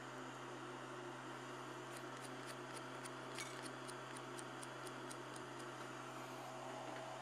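Faint steady electrical hum under a light hiss, with a run of small quick ticks in the middle.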